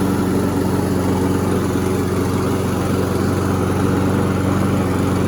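Toro 7.25 horsepower Personal Pace lawnmower engine running steadily at an even speed, freshly started after being pulled from the trash.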